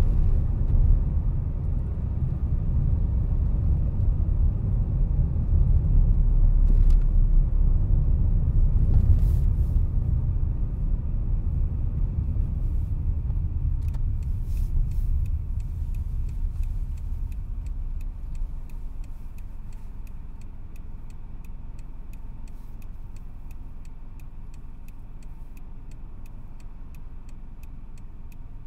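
Inside a car cabin: tyre and road rumble while driving, dying away as the car slows to a stop. Then the quieter hum of the car waiting, with the turn indicator ticking steadily.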